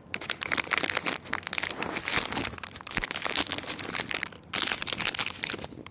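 Loud, crackly crinkling and rustling close to the phone's microphone, broken by a short pause about four and a half seconds in.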